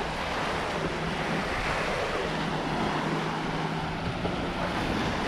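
Gulf surf washing onto the beach, with wind buffeting the microphone; a steady low hum runs underneath.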